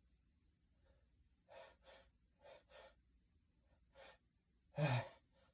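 A man's breathing between sneezes: quick short sniffs or breaths, two pairs and then one more, followed near the end by a louder voiced gasp as the next sneeze builds.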